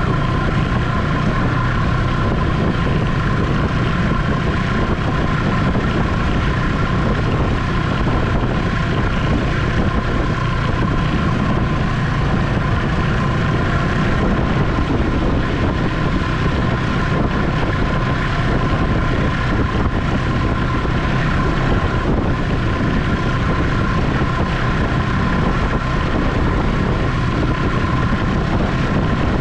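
Ski-Doo Expedition SE snowmobile running at a steady cruise, a constant engine drone with a steady high whine over it and some wind on the microphone.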